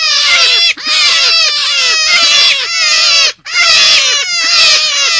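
Forest rabbit lure call: rapid, high, downward-sliding squealing notes packed together in loud bouts, broken twice by brief gaps.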